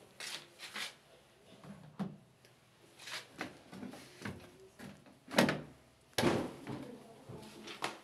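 Washing machine's plastic detergent drawer being slid and pulled out: a series of scrapes and sharp clunks, the loudest a little after five seconds in and another about a second later.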